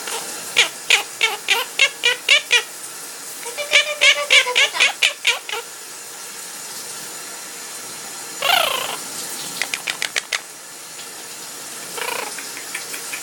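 Pet parrot singing: runs of short, quick repeated notes, then a falling whistle about eight and a half seconds in and a few more quick notes, over the steady hiss of a running shower.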